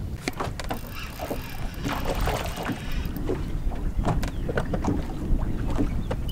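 Wind buffeting the microphone over a boat on choppy water, with water slapping against the hull and scattered short clicks and knocks.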